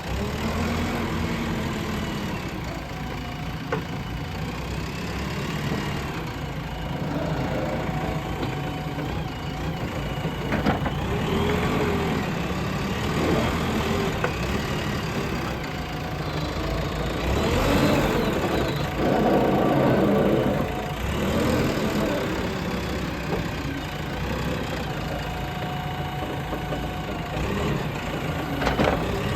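Diesel engine of a JCB earthmoving machine running at work, its revs rising and falling with the load and loudest about two-thirds of the way through, with a couple of sharp clanks.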